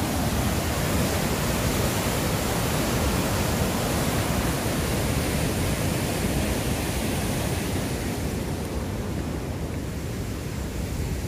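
Steady rushing of heavy white water at Huka Falls on the Waikato River, an even hiss from deep to high pitch that gets a little quieter near the end.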